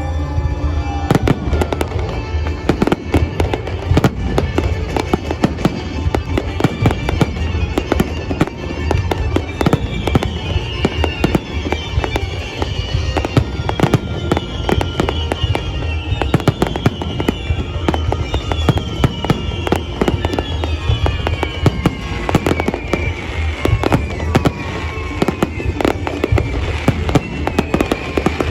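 Fireworks salute going off continuously: dense bangs and crackling over a low rumble. From about a third of the way in, whistles repeatedly fall in pitch every second or two.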